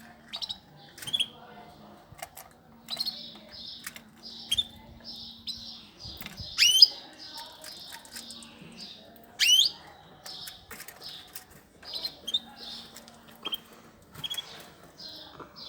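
Pet cage birds chirping steadily in rapid runs of short high notes, with two loud rising calls, one about seven seconds in and one about nine and a half seconds in.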